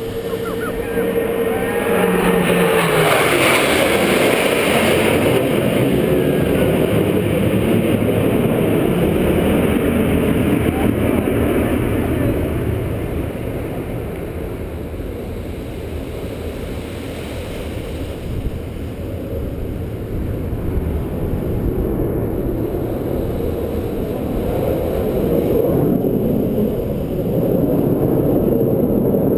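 Blue Angels F/A-18 Hornet jets flying over in formation: a falling whine as they pass in the first few seconds, then a loud jet roar that eases off around the middle and swells again near the end.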